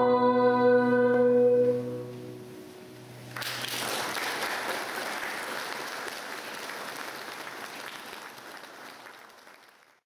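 A soprano with piano and bassoon holds the final chord of a song, which ends about two seconds in. After a short pause, audience applause breaks out suddenly and fades away near the end.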